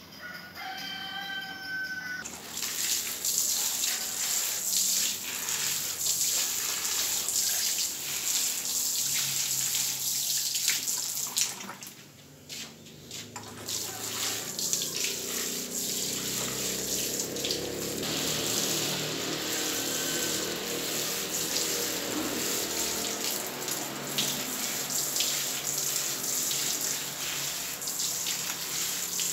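Water showering from a plastic watering can's rose and pouring from a pipe outlet, splashing onto potting soil and concrete. A steady splashing hiss that starts about two seconds in and drops away briefly around twelve seconds in.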